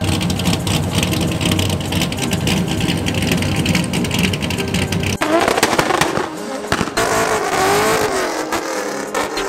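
A drift car's engine running loudly with many sharp pops. From about five seconds in, the rear tyres of a BMW E36 drift car squeal in a smoky burnout, a wavering squeal that rises and falls over the engine.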